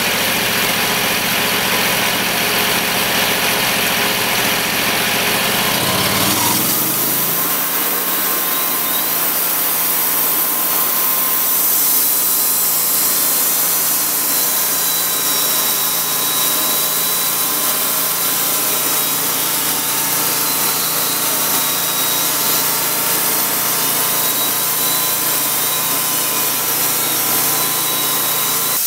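Homemade bandsaw sawmill running: its 22-horsepower V-twin engine drives the band blade through a hemlock cant. About six seconds in, the engine speed rises and settles to a steady pitch as the cut goes on.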